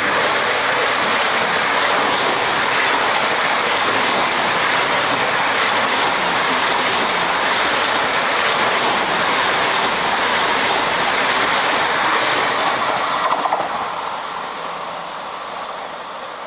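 Deutsche Bahn ICE 4 high-speed electric multiple unit passing at close range: a loud, steady rush of wheels on rails and air. It fades away after about thirteen seconds.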